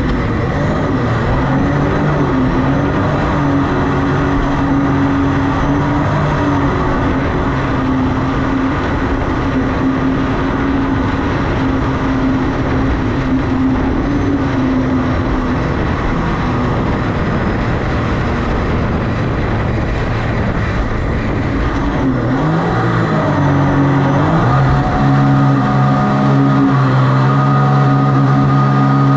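Mini jet boat's engine running hard as it drives up through rapids, with the rush of whitewater underneath. Near the end the engine note dips and climbs back, then runs a little louder.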